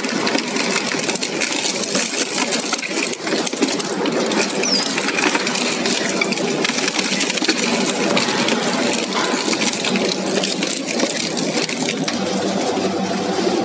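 Twin-shaft shredder's interlocking steel cutters tearing through upholstered wooden furniture. Continuous dense crunching and splintering, with constant crackle and metallic clatter over the machine's running.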